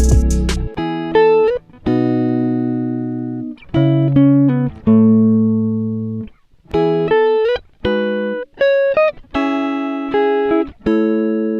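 Background music: plucked guitar playing single notes and chords, each ringing out and fading before the next.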